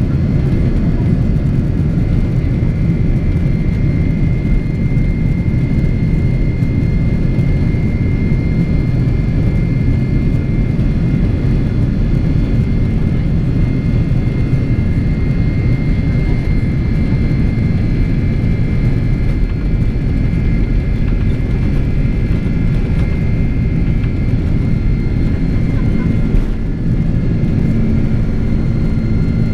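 Boeing 767-400ER's GE CF6 turbofans heard inside the passenger cabin: a steady heavy rumble with several constant high whines over it.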